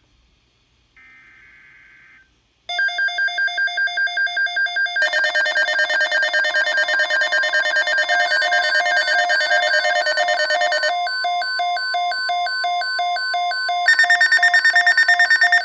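Weather radio receiver's alert alarm going off for a tornado watch: a faint short tone, then loud electronic beeping at about three beeps a second that changes pattern twice and quickens near the end.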